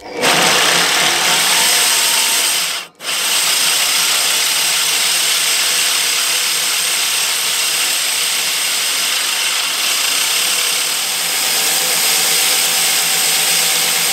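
A power drill spins an ATCO Balmoral cylinder mower's reel backwards, so the reel blades grind against the bottom blade through 120-grit lapping paste. This is backlapping to resharpen the cutting edges. The steady grinding run stops briefly about three seconds in, then starts again and runs on evenly.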